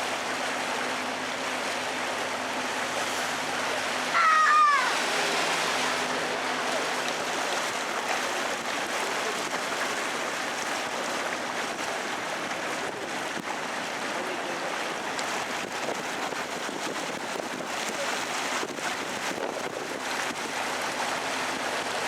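Steady rush of water and wind around an open canal tour boat under way, with a faint low motor hum. About four seconds in, a brief loud call with a bending pitch rises over it.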